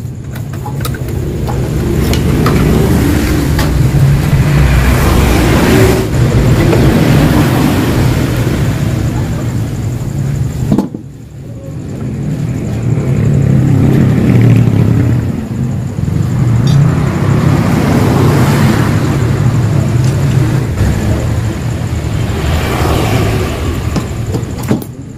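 Yamaha RX-King two-stroke single-cylinder motorcycle engine revved through its exhaust in several long swells, easing off briefly about halfway.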